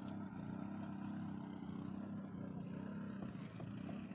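A steady, low engine-like drone.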